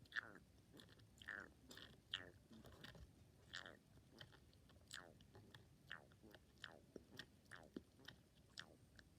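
Faint squeaky noises from sucking air and juice through the chewed opening of a juice drink, about twenty short squeaks at roughly two a second, each sliding down in pitch.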